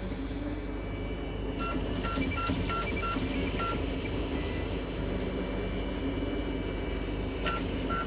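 3D printer at work: its stepper motors sound a run of short, evenly spaced pitched notes as the print head shuttles back and forth, about one and a half seconds in and again near the end, over the steady hum of its cooling fans.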